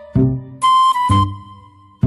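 Background music: a short looping phrase with low bass hits and a high, whistle-like held melody, repeating about every two seconds.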